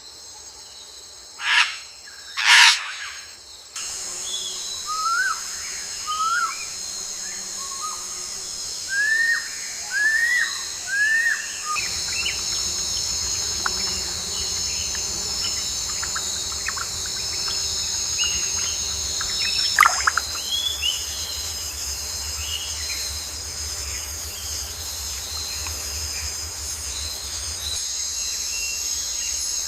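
Natural ambience: a steady, high-pitched insect chorus with short, repeated bird chirps over it, and two louder sweeping calls near the start.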